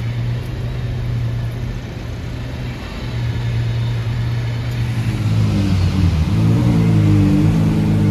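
Supercar engines in street traffic: a steady low engine idle, then about five seconds in a louder engine whose pitch rises and falls, the gold Ferrari 812 Superfast's V12 idling with light revs.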